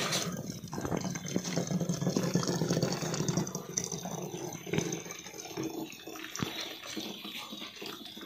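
Coffee pouring in a thin stream from a vacuum flask through a plastic funnel into a glass bottle: a steady trickling splash of liquid filling the bottle, growing a little quieter toward the end.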